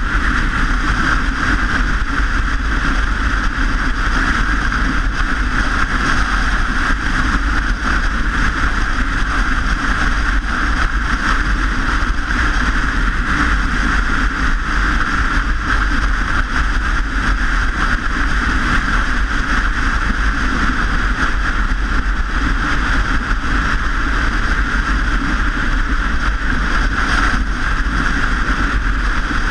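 Steady wind and road noise of riding a bicycle: an even rushing with a deep low rumble that neither rises nor falls.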